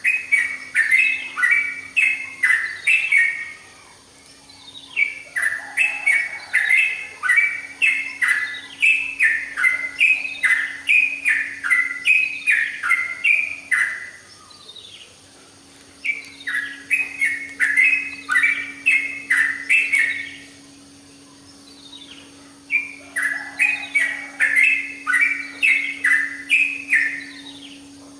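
Yellow-vented bulbul (trucukan) singing in vigorous bouts of quick, repeated chattering notes, each bout several seconds long with short pauses between, over a faint steady hum.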